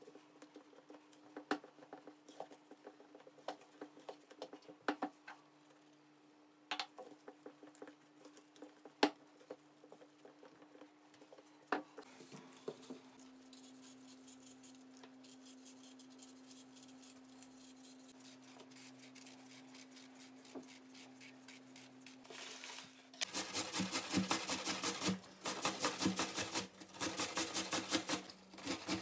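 A spatula scrapes and taps around a stainless steel mixing bowl with scattered clicks as batter is stirred. A quieter stretch follows while an apple is cut. About three-quarters of the way through, an apple is grated on a metal box grater: loud runs of rapid rasping strokes, three runs with short pauses between them.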